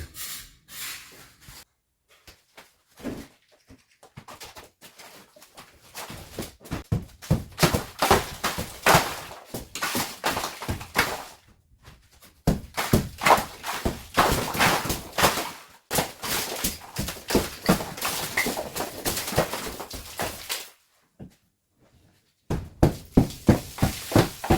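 Repeated uneven knocks and thuds of demolition, a built-in fixture in an old mud-walled house being smashed apart by hand. The blows come in long bursts, with a short pause a few seconds before the end.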